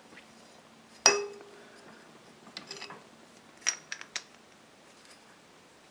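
Small metal engine parts clinking and tapping as a piston is fitted onto the connecting rod: one sharp, ringing metallic clink about a second in, then a few lighter clicks and taps.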